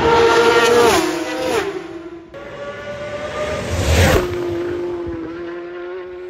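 Racing superbikes at high speed: two bikes pass close by in quick succession, each engine note dropping in pitch as it goes past. About four seconds in, another bike passes with a sharp whoosh and falling pitch, and its engine fades away into the distance.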